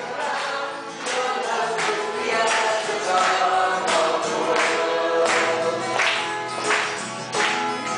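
Music with a group of voices singing over a steady beat.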